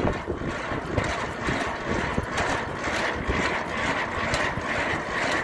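Semi-trailer landing gear being cranked by hand, the crank and gears clicking round in a steady rhythm, over the truck's diesel engine idling.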